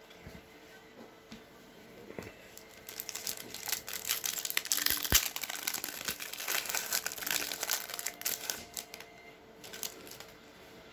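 A hockey card pack's wrapper being torn open and crinkled, a dense crackling that builds about two seconds in, is loudest in the middle and fades out near the end.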